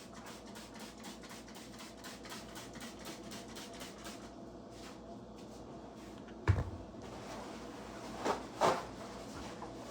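Household clatter from tidying up: faint rapid ticking, then a sharp knock about six and a half seconds in and two shorter knocks near the end.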